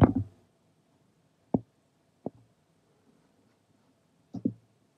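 Computer mouse clicks in a quiet room: one sharp click about a second and a half in, a softer one a little after two seconds, and a quick double click near the end.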